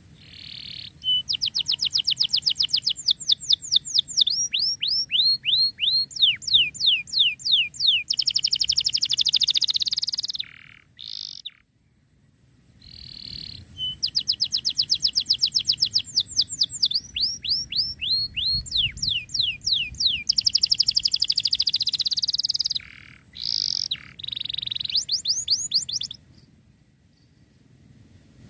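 Canary singing in two long song phrases, each a run of fast trills of high, downward-sweeping notes, with a pause of about two seconds between them.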